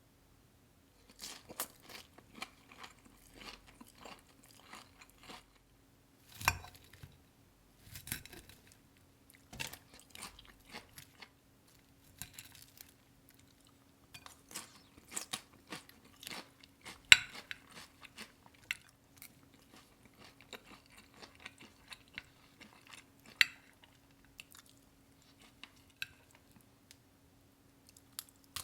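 Crisp breaded pork cutlet being bitten and chewed close to the microphone: irregular crunches, with a few sharper, louder bites.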